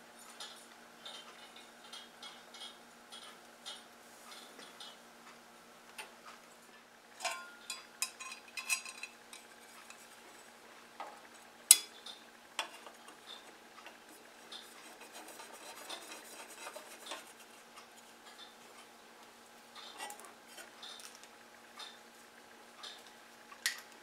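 Light metallic clinks and taps as a sheet-metal guard is handled and held against the bandsaw's base frame. The taps are scattered, with a louder single clink about halfway through, over a faint steady hum.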